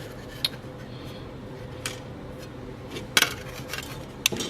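Light clicks and clinks of a refrigerator thermostat and its small metal parts being handled, a few separate taps with a sharper cluster about three seconds in.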